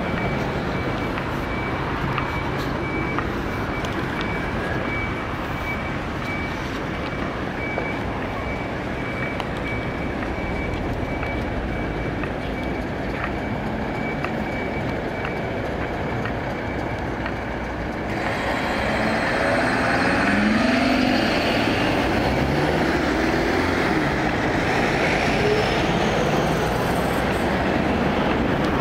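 Urban road traffic at a signalled junction. For the first part a faint high beep repeats steadily. About eighteen seconds in the traffic gets louder as cars and a delivery truck pull away close by, their engines rising in pitch as they accelerate.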